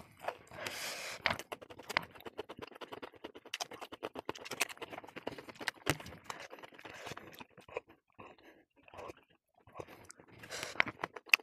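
Close-up chewing and mouth sounds of someone eating a mouthful of rice and fried pork: a dense run of crisp clicks and crunches that thins out near the end, with fingers scraping food together on a steel plate.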